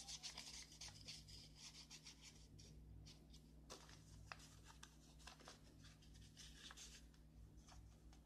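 Faint scraping and rustling as a wooden stick spreads white glue on a paper petal and fingers press the paper together, with scattered small ticks over a low steady hum.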